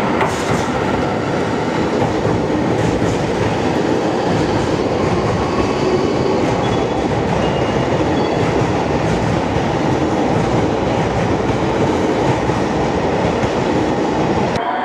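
JR Hokkaido 733-series electric train running past along the platform: a steady rumble and clatter of wheels on the rails, with a few faint, brief high wheel squeals around the middle.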